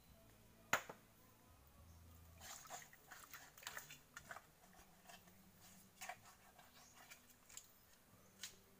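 Hands digging in wet mangrove mud: soft squelches and scattered small clicks, with one sharp click about a second in.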